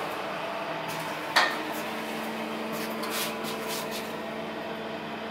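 Steady hum inside an elevator car standing with its doors open, with one sharp click about a second and a half in and a low steady tone setting in just after it.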